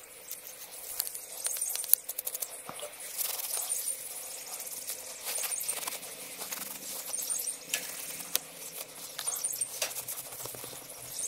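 Quiet scrubbing and wiping of Winchester 9422 rifle parts with a toothbrush and paper towel: scratching, paper rustling and small clicks of metal. A faint high chirp repeats every two seconds or so.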